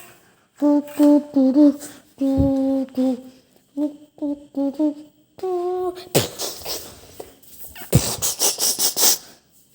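A person's voice making short hummed notes without words, then a stretch of rapid, hissing, clicking mouth-like sounds with a sharp knock about eight seconds in.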